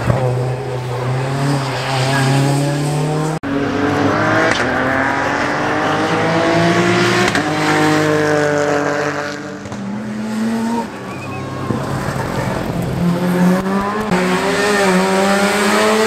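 Rally car engines at full throttle: a hatchback's engine for the first few seconds, then, after a cut, a first-generation Mazda RX-7's rotary engine revving hard, its pitch climbing and dropping back several times as it changes gear.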